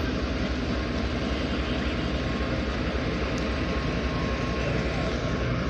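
Pakistan Railways GEU-40 diesel-electric locomotive passing close by at low speed as it pulls its train away. The diesel engine runs with a steady low rumble under the wheel and track noise.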